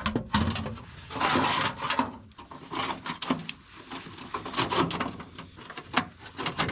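Sheet-metal exhaust heat shield on a BMW X1 being handled and fitted under the car: irregular knocks, light clanks and rattles, with a longer scrape of metal about a second in.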